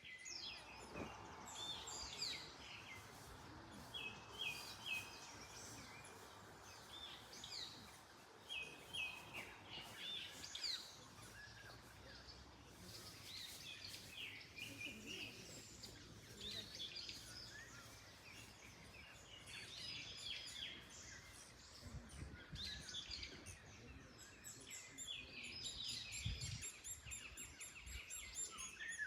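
Several songbirds chirping and singing, with short repeated phrases, over a soft rustle of wind through the trees. A few low gusts of wind sound near the end.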